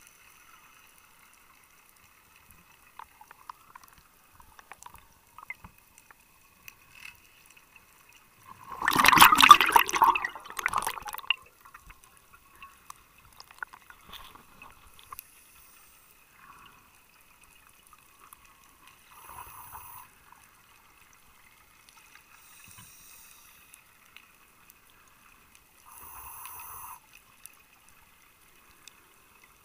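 Scuba diver's regulator exhaling, heard underwater: one loud rush of bubbles lasting about two seconds, then three fainter, shorter bursts of bubbles later on.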